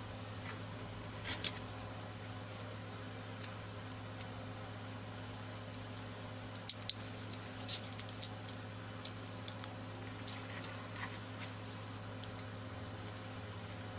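Small, irregular clicks and light scratches of insulating paper being handled and pressed into the slots of a blender armature. The clicks come thickest from about six and a half to ten seconds in, over a steady low hum.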